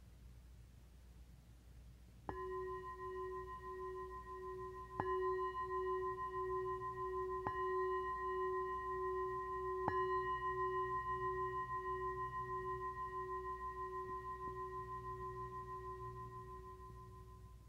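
Singing bowl struck four times, about two and a half seconds apart, its ring wavering and building with each strike, then slowly fading out. It marks the end of the final relaxation.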